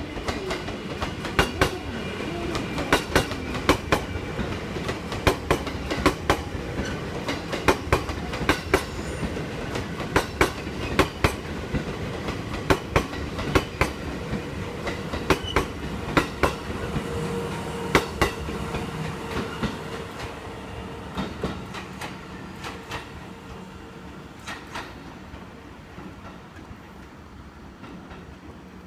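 JR East 651 series electric multiple unit passing through a station without stopping, its wheels clattering over the rail joints with many sharp clicks over a steady rumble. The sound fades away over the last several seconds.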